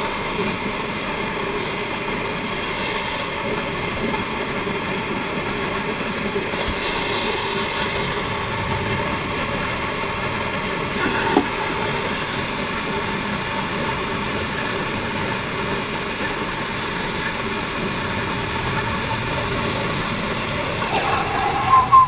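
A small motor running with a steady hum, and a single sharp click about halfway through.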